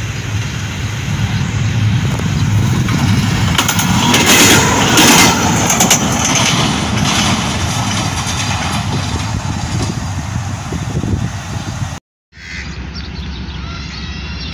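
Diesel locomotive passing close by: a low rumble with clattering wheels, building to its loudest about four to six seconds in, then easing off. It cuts off sharply about twelve seconds in, giving way to quieter steady background sound.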